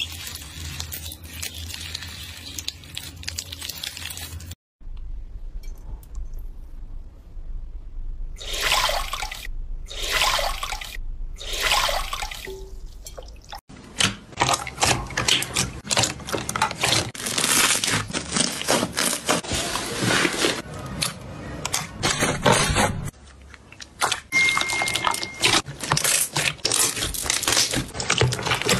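Hands squeezing and pressing slime: wet, sticky squelching and crackling, first from a clear slime packed with plastic beads, then from slime pressed in a tub. It comes in several separate stretches with abrupt cuts between them, including three short bursts in the middle.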